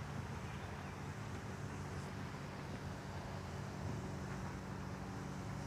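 A steady low hum over a faint even noise, with no distinct events.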